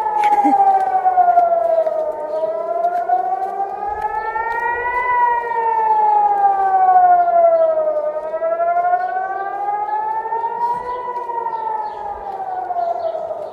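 Civil-defence air-raid siren wailing, its pitch rising and falling slowly, about one rise and fall every six seconds. In Israel this rising-and-falling wail is the warning of an incoming rocket or missile attack.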